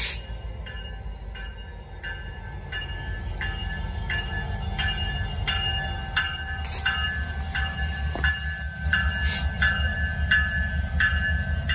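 CP Holiday Train rolling slowly past with a steady low rumble while a bell rings evenly, about one and a half strikes a second. Two short hisses come about 7 and 9.5 seconds in.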